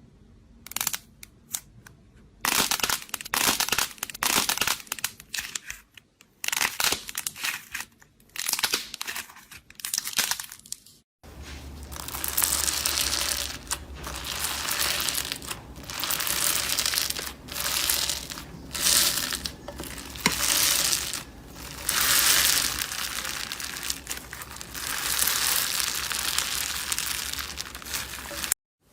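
Slime being squeezed, pressed and pulled by hand, making repeated crackling, crunchy squishes in uneven bursts. About eleven seconds in, a sudden cut leads to a second clip of the same kind of handling, with a steady low hum underneath.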